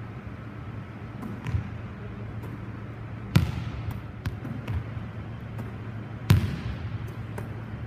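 A volleyball struck back and forth by players: two loud sharp hits about three seconds apart, each ringing out in a gymnasium's echo, with fainter knocks between.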